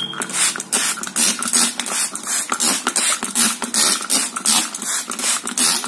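Plastic trigger spray bottle squirting water onto potting soil in quick repeated spritzes, about three a second.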